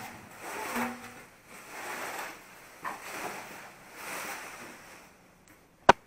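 Packing being pulled off a new refrigerator: plastic film and plastic packing pieces rustling and scraping in several short bursts, then a single sharp click near the end.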